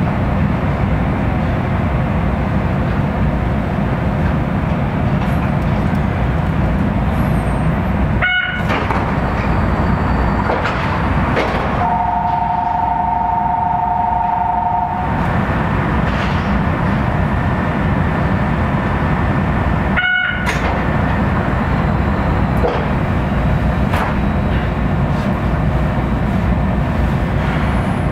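Kitakyushu Monorail train running on its rubber tyres, a steady rumble of running noise heard from inside the car. About twelve seconds in, a two-tone horn sounds steadily for about three seconds.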